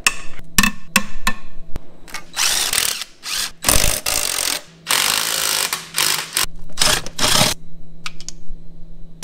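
Cordless power tool driving a socket onto rusted engine-mount bolts, run in a string of short bursts, some about a second long, with a few sharp clicks near the end.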